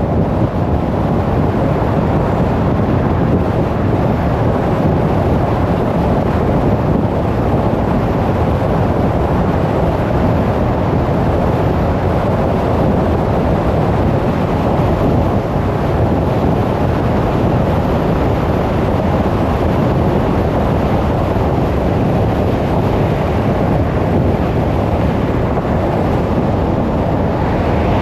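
Steady road noise of a car driving: rushing tyre and wind noise, heaviest low down, even throughout.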